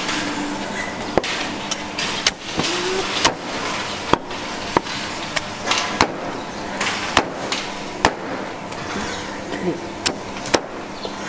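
Meat cleaver chopping through roast pork and bone onto a thick wooden chopping block: a dozen or so sharp chops, irregularly spaced, over steady background noise.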